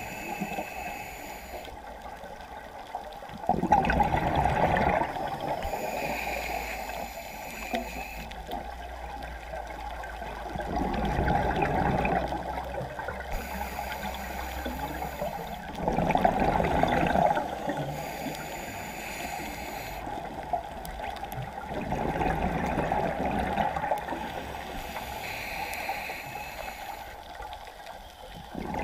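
Scuba diver breathing through a regulator underwater: a hiss on each inhale, then a loud burst of bubbling exhaust, repeating about every six seconds.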